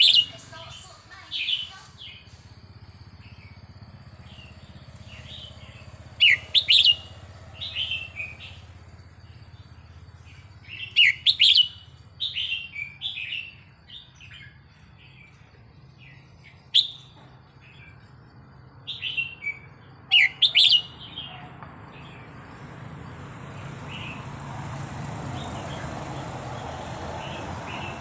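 Red-whiskered bulbul singing: short clusters of bright chirping notes with pauses between them, about half a dozen phrases. In the last few seconds a steady rushing noise builds up beneath the song.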